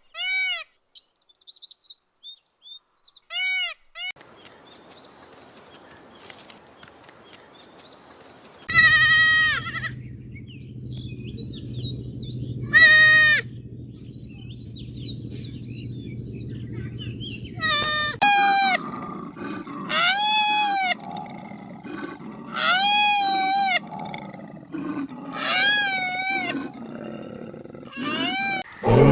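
Goat bleating, about nine separate calls each rising and falling in pitch, spaced a few seconds apart over a low steady background hum. A loud roar begins right at the end.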